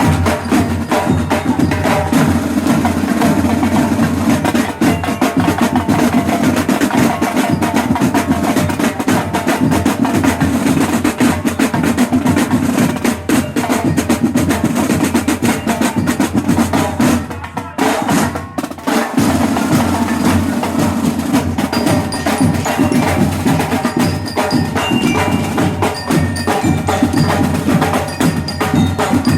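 A marching band's drum and percussion section playing a fast, continuous rhythm, with a brief drop in level a little past the middle.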